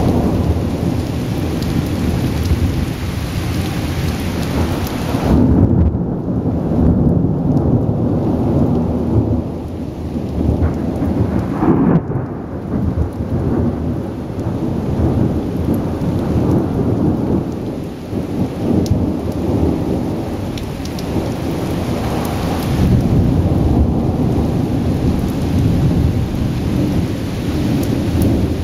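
Thunderstorm: thunder rumbling in long, low rolls over steady rain. The rumble swells about five seconds in and again in the last few seconds.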